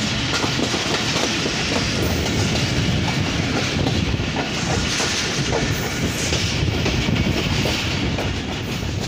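Pakistan Railways passenger train running steadily, heard from an open coach doorway: a continuous rumble and rush of air with the wheels clattering in quick, uneven clicks over the track.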